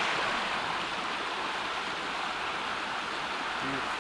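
Small mountain creek running steadily over rocks and riffles.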